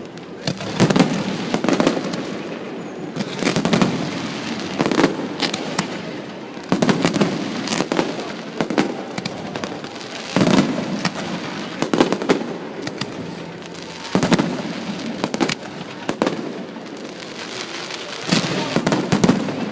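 Aerial fireworks display: shells bursting one after another every second or two, sharp cracks with booming and crackling tails.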